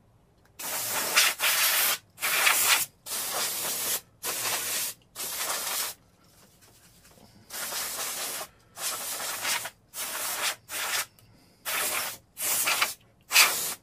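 Compressed air blown over a circuit board to clean off dust, in about a dozen short hissing bursts with a pause of about a second and a half midway.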